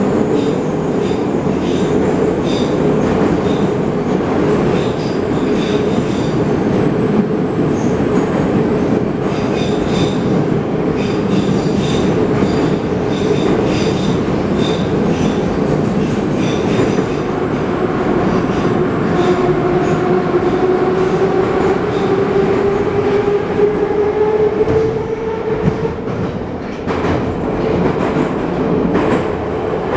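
Metro train of the 81-717.5 type running through a tunnel, heard from inside the passenger car as a steady loud rumble. Rapid clicks from the wheels run through the first half. From about two-thirds of the way in, a whine rises in pitch, and the noise dips briefly near the end.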